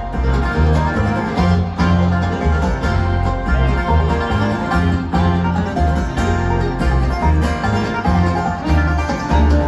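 Live bluegrass band playing loudly through a hall PA: fast banjo and guitar picking over a moving bass line, with no singing.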